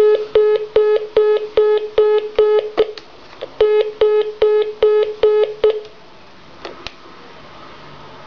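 Telephone line tone beeping rapidly, each beep starting with a click: about seven beeps, a short break, about six more, then two lone clicks. The line is one its owner reports as being interfered with.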